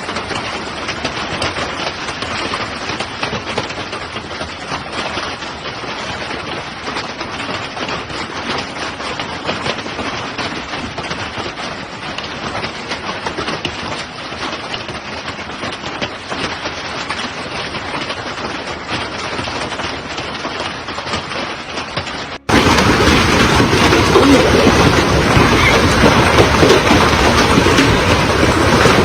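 Heavy rain pouring down in a steady hiss. About three-quarters of the way through it cuts abruptly to a louder, fuller rush of rain.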